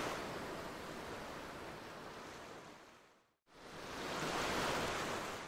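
Sea surf: two waves washing in, each swelling and then fading, with a short break between them about three seconds in.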